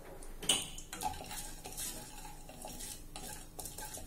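Wooden spatula stirring peanuts and dals frying in oil in a nonstick pan: irregular scrapes and clicks of the spatula and the hard nuts against the pan, the strongest about half a second in, over a faint sizzle of the oil.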